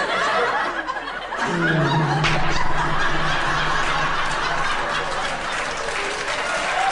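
Studio audience laughing, with applause joining in as it goes on.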